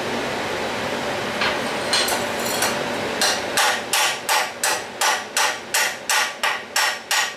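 Steel chipping hammer striking a fresh stick (rutile electrode) weld bead on steel plate, knocking off the slag: about a dozen sharp metallic strikes at about three a second, starting about three seconds in after a steady hiss.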